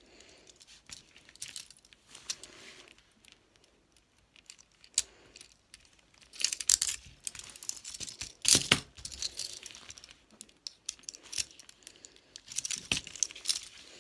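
Metal handcuffs being handled and worked with their key: sharp clicks and metallic rattling, sparse at first, then in busier bursts past the middle and again near the end.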